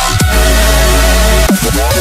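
Electronic dance music with heavy sustained bass and falling pitch sweeps, in a dubstep style.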